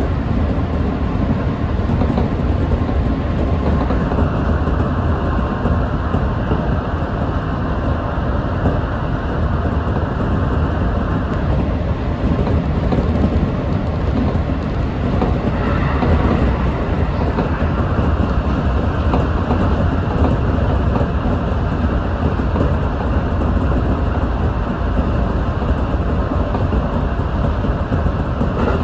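Electric train running along the track, heard from inside the leading car: a steady rumble of wheels and running gear.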